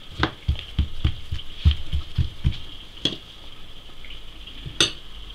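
Hands patting and pressing a ball of meloui dough flat on a floured wooden board: soft dull thuds, about three or four a second for the first two and a half seconds, one more a little later, then a single sharper knock near the end.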